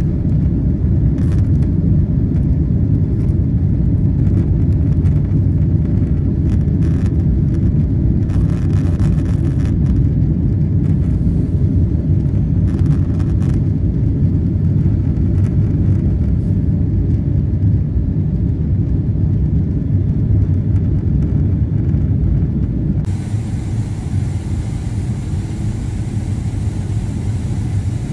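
Steady low rumble of a jet airliner's engines and airflow heard inside the cabin. Near the end it changes abruptly to a slightly quieter rumble with more hiss.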